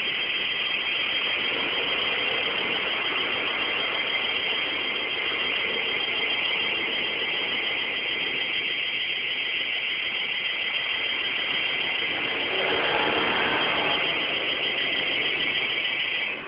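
Electronic alarm sounding continuously: a loud, shrill, high buzz with a fast flutter, cutting off suddenly near the end. Some other noise swells under it for a couple of seconds about three quarters of the way through.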